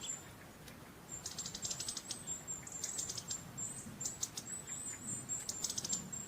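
Small songbird singing: high, thin chirps and rapid trills, repeated phrase after phrase from about a second in.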